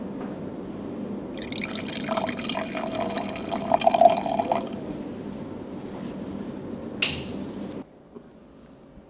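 Wine poured into a glass for about three seconds, loudest near the end of the pour, then a single short clink a few seconds later.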